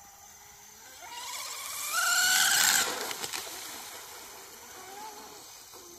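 RC outrigger boat with a TP Power brushless motor on a high-speed pass: a motor whine rising in pitch with hissing water spray builds from about a second in, is loudest around two to three seconds in, then drops away to a fainter whine.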